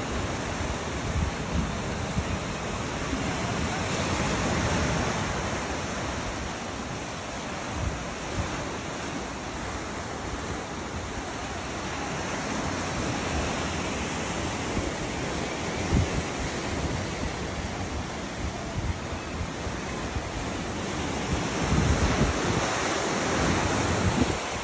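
Sea surf washing and breaking among rocky cliffs below, a continuous rush that swells and eases in slow surges. Wind gusts on the microphone add low buffeting thumps.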